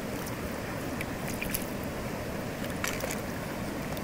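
Mountain stream water rushing steadily, with a few brief sharp clicks about halfway through.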